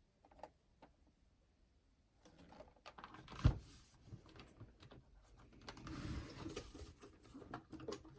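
Handling noise from a clock radio/cassette player being taken apart: a few light clicks, then rattling and knocking of the case with one sharp knock, followed by a stretch of rubbing and scraping as parts are worked at.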